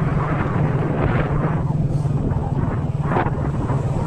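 Vehicle engine running at a steady low drone, with wind rushing over the microphone in faint swells.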